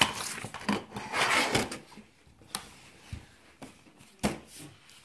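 Gifts and candy handled on a small wooden table: rustling for about the first two seconds, then several separate sharp knocks as things are set down or bumped.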